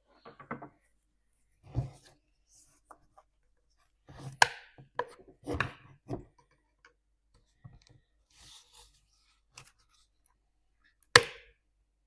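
Irregular knocks, clicks and rubbing, as of objects being handled, with a sharp click near the end.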